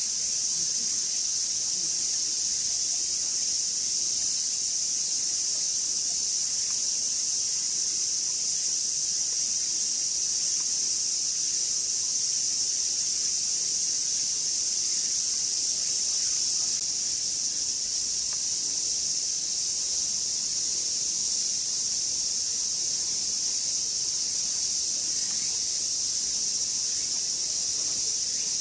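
A chorus of summer cicadas droning steadily at a high pitch.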